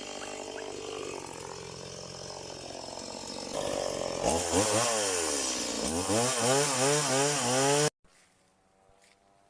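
Stihl MS180 two-stroke chainsaw running steadily, then louder from about three and a half seconds in, its engine speed rising and falling several times. The sound cuts off abruptly near the end.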